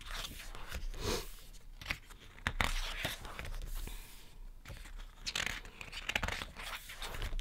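Pages of a thick 256-page photobook being turned and smoothed flat by hand: paper rustling and crinkling, with a few sharp light clicks.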